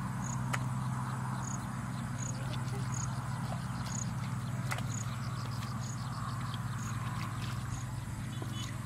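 Open-air ambience: a steady low hum under a short, high chirp that repeats about once a second, with a few faint clicks.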